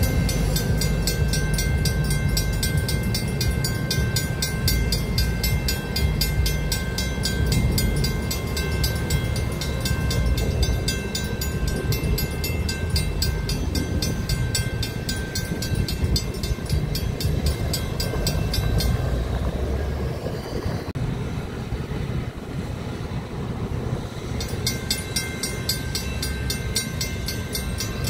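Mechanical railroad crossing bells clanging in a rapid, even beat over the low rumble of a DART light rail train passing. The bells stop about two-thirds of the way through, and a crossing bell starts ringing again a few seconds before the end.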